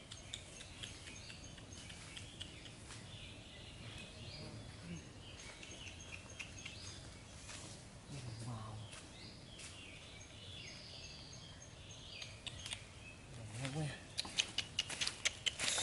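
Birds chirping and calling over a steady forest background. Near the end, footsteps crunch on dry leaves and dirt, getting louder as someone walks up close.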